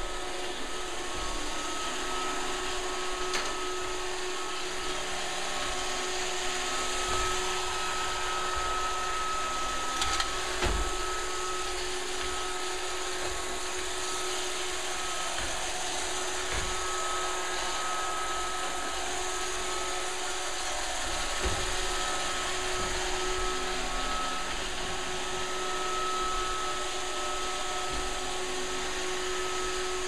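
iRobot Roomba robot vacuum running: a steady whirr of its vacuum motor and brushes with a constant high whine, and a few short knocks along the way.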